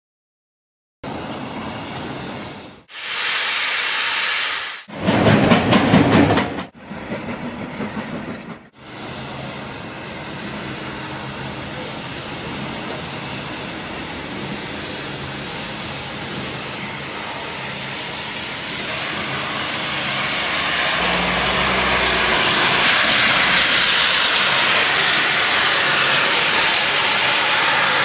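Steam locomotive approaching, its steam hiss and running noise building steadily and growing louder over the last several seconds. It is preceded by a string of short, abruptly cut bursts of train noise in the opening seconds.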